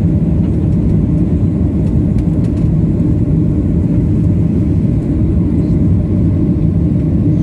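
Steady, loud low rumble of a Boeing 737-800 heard from inside the passenger cabin: engine and airflow noise, unchanging throughout.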